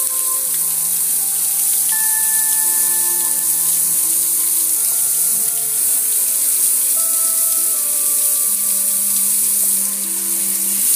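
Water pouring and splashing over a gas grill's lid and control panel, a steady rushing hiss. Background music of held notes changing pitch every second or so plays underneath.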